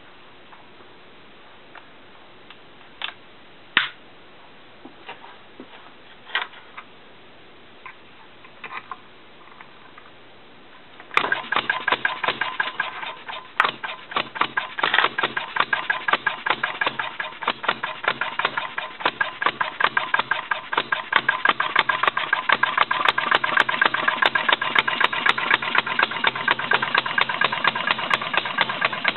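A few scattered clicks and knocks, then about eleven seconds in an RMC Type D non-compression gasoline engine with battery-and-coil spark ignition starts at once and runs with a fast, even train of sharp firing pops.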